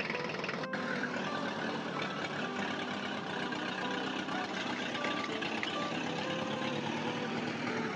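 Truck engine sound effect idling steadily, laid over toy-vehicle play, with a very brief break under a second in.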